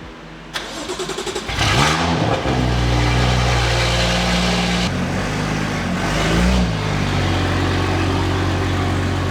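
BMW M2's turbocharged N55 straight-six with an aftermarket exhaust is cranked on the starter and catches after about a second. Its revs flare up and settle into a fast idle, with a short rev blip about six seconds in.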